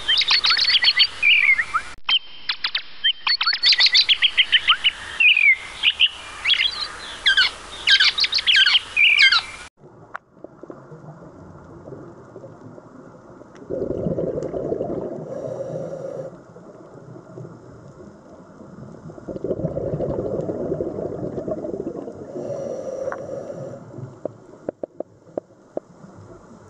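Songbirds chirping and trilling, stopping abruptly about ten seconds in. Then muffled underwater sound: two swells of bubbling a few seconds long, typical of a scuba diver's exhaled bubbles from a regulator, and a few faint clicks near the end.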